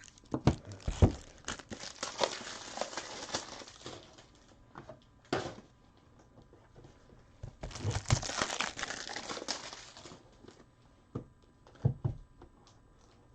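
Hands handling trading cards and rigid plastic top loaders: crinkling and rustling of plastic and card in two stretches, one starting about half a second in and one about eight seconds in, with scattered taps and knocks.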